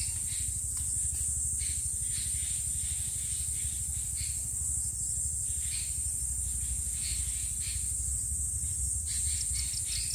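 Steady high-pitched hiss over a low hum, with short irregular scuffs every second or so and a quick cluster of them near the end.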